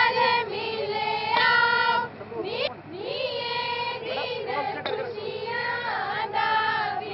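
Girls singing Punjabi boliyan in high voices, in short sung lines with brief breaks between them.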